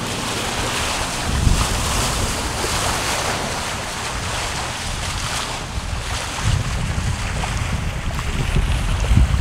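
Wind buffeting the microphone over the rush of waves and water against the hull of a catamaran under way. Gusts of low rumble come in about a second in and again after about six seconds.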